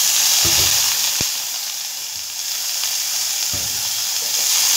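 Methi muthiya frying in hot oil in a pan, sizzling loudly from water just sprinkled over them. The sizzle eases a little mid-way and picks up again near the end, with a few low knocks.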